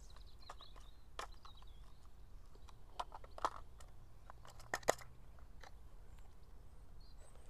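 Scattered small clicks and ticks of fingers handling fishing tackle, threading a small bead or swivel onto the line, with a close pair of sharper clicks about five seconds in.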